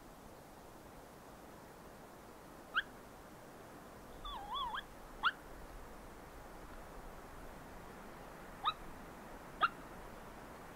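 Merriam's wild turkey clucking: single sharp calls a few seconds apart, with a short rolling purr about four seconds in, over a steady hiss of wind.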